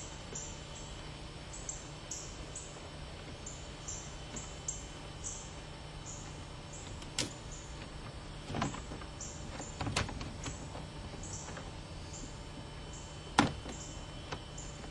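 Hand work on a car's plastic grille and bumper fascia: a few sharp clicks and knocks, the loudest about thirteen seconds in. Under them run a steady low hum and a string of faint high chirps.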